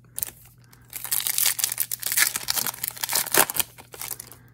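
Foil wrapper of a 2019 Topps Gallery trading card pack crinkling and tearing as it is handled and ripped open: a couple of light clicks, then dense crackling from about a second in until near the end.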